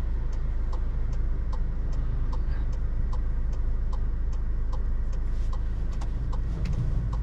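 Car indicator ticking at an even pace, about two to three ticks a second, over the low steady hum of the 2018 Skoda Octavia vRS 230's engine and road noise, heard inside the cabin.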